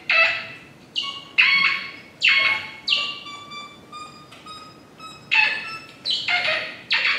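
Cracklebox squealing in short electronic chirps: about ten sharp squeaks at uneven gaps, each starting suddenly and sliding down in pitch as it fades.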